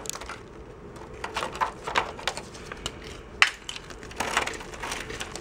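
Flaking rust scale and caked dirt on a Toyota Tundra's corroded frame rail, crumbling and breaking off under gloved fingers and falling in irregular crunches and small clicks, with one sharper snap about three and a half seconds in.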